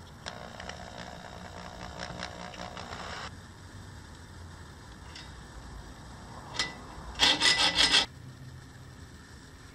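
An electric drill boring into a small wooden knife-handle block for about three seconds, running at a steady pitch. Near the end comes a quick run of loud scraping strokes from a hacksaw cutting wood.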